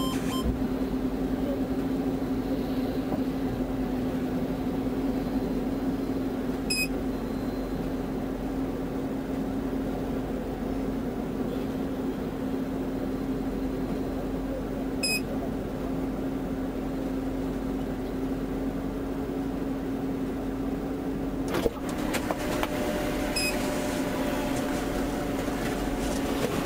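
Steady mechanical hum inside an idling patrol car's cabin. Three short high electronic beeps come about eight seconds apart, and there is a sharp click a little after two-thirds of the way in, after which the hum shifts slightly.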